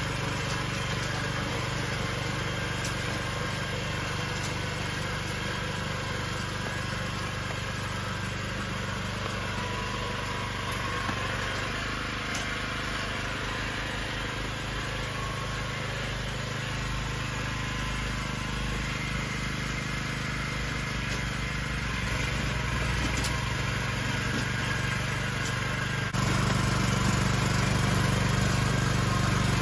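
Agria walk-behind rotary tiller's engine running steadily while its tines work the soil, growing louder in the last few seconds as the machine comes closer.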